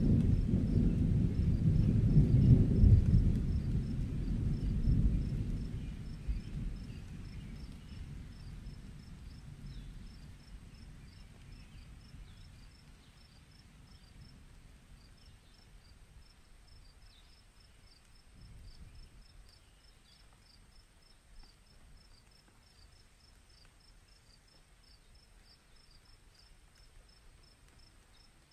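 Distant rolling thunder rumbles and dies away over the first ten seconds or so. Crickets chirp steadily throughout.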